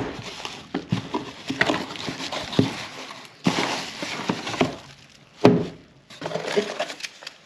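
Crinkling bubble wrap and rustling cardboard as plastic-wrapped chair bundles are handled and pulled from a cardboard box, with louder rustles about three and a half and five and a half seconds in.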